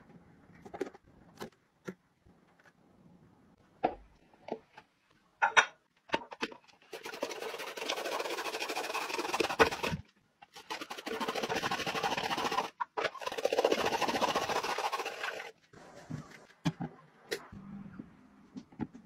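Rotary drum grater shredding carrots: a steady scraping rasp in two long stretches, about seven seconds in and again after a short break. Scattered light clicks and knocks come before and after it.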